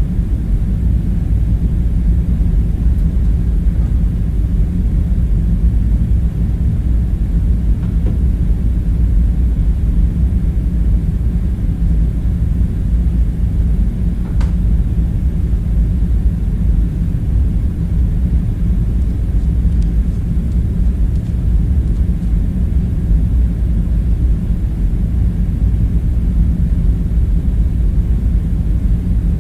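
Steady, deep low rumble of an ambience bed, like heavy ventilation or machinery hum, even throughout, with one faint tick about halfway through.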